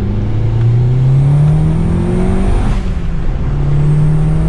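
Big-turbo VW GTI 2.0 turbo four-cylinder heard from inside the cabin, accelerating hard in second gear with the engine note climbing. About two and a half seconds in the note breaks off with a brief rush of air, then the engine pulls and climbs again.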